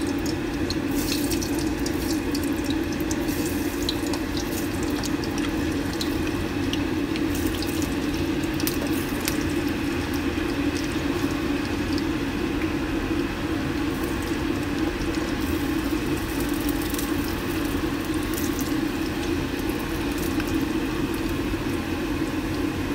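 Potato pieces deep-frying in hot oil: a steady sizzle with many small crackles and pops, over a steady low rush.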